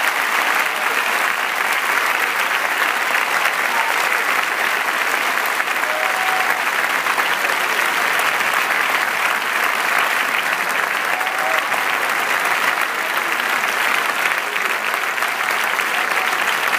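Large audience applauding steadily, a dense, unbroken clapping at the curtain call of an opera performance.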